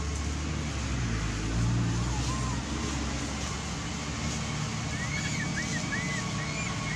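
Steady low engine hum of a motor vehicle running nearby, under a hiss of outdoor noise. About five seconds in comes a quick run of short high chirps, each rising and falling.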